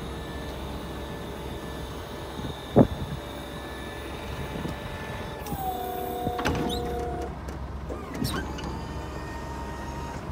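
Motor-driven hydraulic pump of a truck's wing-body box running with a steady whine as the side wing moves, with one sharp clack about three seconds in. Around five and a half seconds the whine drops in pitch and grows louder for a couple of seconds, with a few more knocks.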